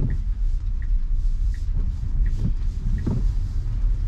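Cabin noise of a Tesla Model Y electric car rolling slowly on a wet road: a steady low tyre and road rumble, with faint regular ticks about every three quarters of a second.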